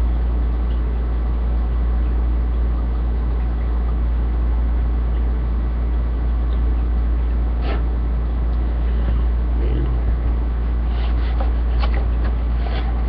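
A steady low hum, with a few light clicks and knocks in the second half.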